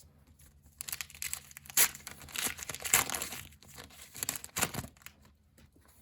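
A Match Attax trading-card packet wrapper being torn open and crinkled: crackling rips and rustles starting about a second in and dying away about a second before the end.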